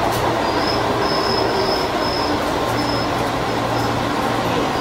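JR 205 series electric train running slowly along a station platform, with a steady rumble and hum and a high thin squeal from the running gear that comes and goes several times.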